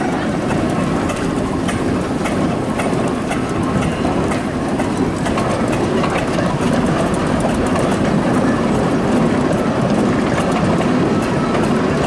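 Steam roller on the move: a steady mechanical clatter with many small rapid clicks, from its engine and gearing and its iron rolls running over the gravel.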